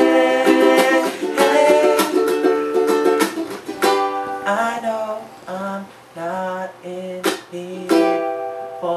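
Ukulele and acoustic guitar strumming chords together. After about four seconds the playing thins out into quieter, separate held notes.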